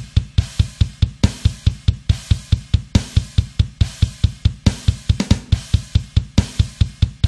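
Deathcore drum track played alone: a steady kick drum at about six beats a second, with snare and hi-hat hits and a cymbal crash every second or two.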